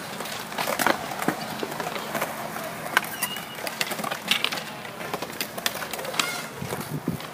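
Skatepark ambience: skateboards rolling on concrete, with frequent sharp clacks and knocks of boards landing and hitting the ground. A short high chirp sounds about three seconds in.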